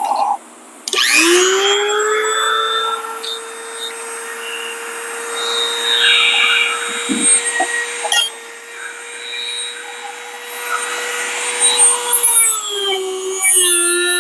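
Electric drill motor spinning up to a steady high whine and running for about eleven seconds, enlarging a hole. Near the end its pitch drops as it slows under load.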